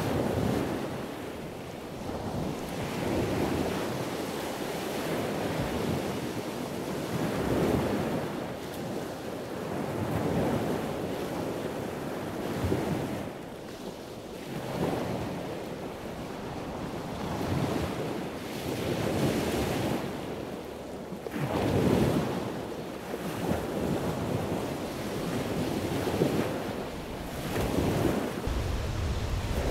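Ocean surf washing in, surging and ebbing every few seconds, with wind on the microphone.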